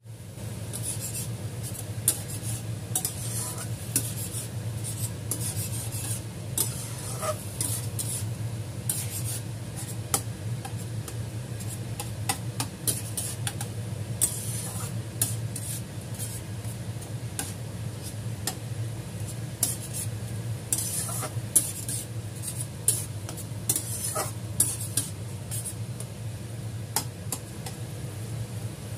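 Minced meat sizzling in a stainless steel pan as a slotted metal spatula stirs it, scraping and clinking against the pan many times. A steady low hum runs underneath.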